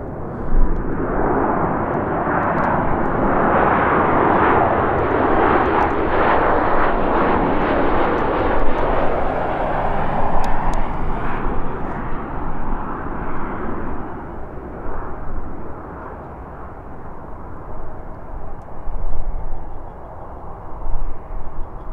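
Jet noise from a Boeing 737 MAX 8's CFM LEAP-1B turbofans as the airliner passes close on final approach. The rushing roar swells over a few seconds, holds, then fades away after about twelve seconds.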